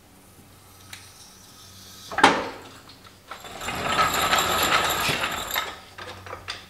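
Floor jack being let down and pulled out from under a golf cart: one loud clunk a little over two seconds in, then the jack rattles for about two seconds as it is rolled out across the concrete floor on its wheels, ending in a few light clicks.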